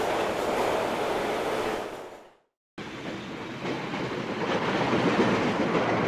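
Recorded sound of a metro train running on its track, a steady rumble and rush that fades out about two seconds in. After a brief dead silence, another train running recording fades in and holds steady.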